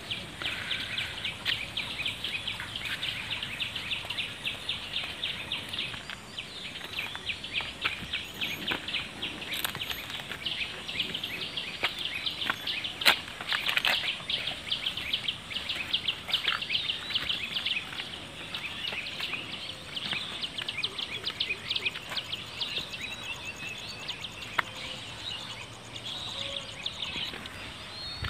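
Small birds chirping continuously in a dense run of short, high chirps over steady outdoor background noise, with one sharp click about halfway through.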